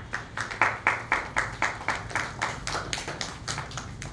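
Applause: hands clapping at a steady rate of about four claps a second, tailing off near the end.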